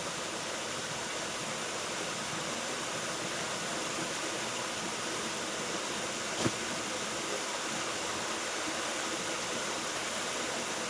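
Waterfall rushing: a steady, even roar of falling water, with one brief click about six and a half seconds in.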